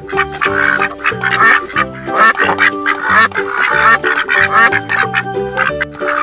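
White domestic ducks quacking repeatedly over background music.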